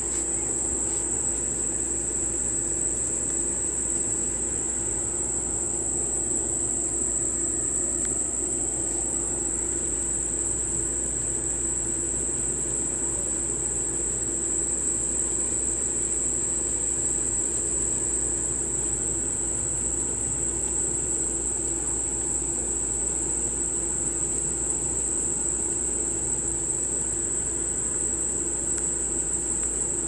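Steady high-pitched insect chorus holding one pitch without a break, over a fainter steady low hum.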